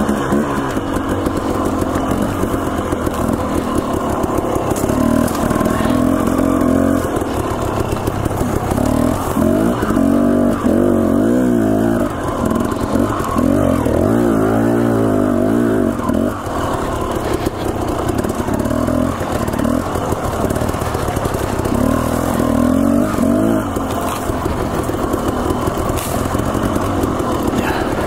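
Dirt bike engine running under load, its revs rising and falling again and again with the throttle.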